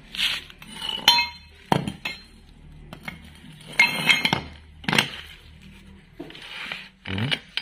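Steel suspension parts (welded swing arms and stub axles) picked up and set down on a concrete floor, giving several separate metallic clinks and knocks, some ringing briefly, with short scrapes between them.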